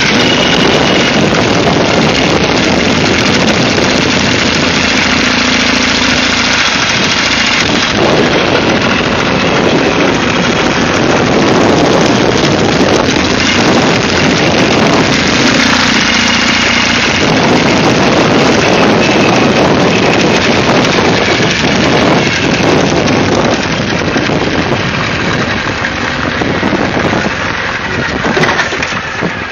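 Ural motorcycle's air-cooled boxer-twin engine running as the bike is ridden, heard from the handlebars with a steady rush of wind and road noise. It grows quieter near the end.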